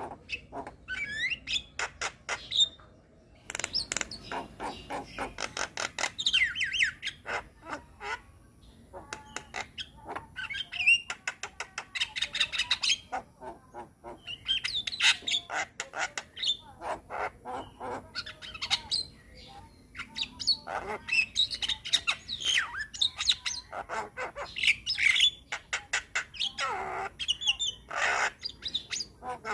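Javan myna (jalak kebo) singing a long, varied song of rapid clicking notes, chirps and harsh squawks, with brief pauses. The song is full of mixed-in phrases (isian) copied from other birds.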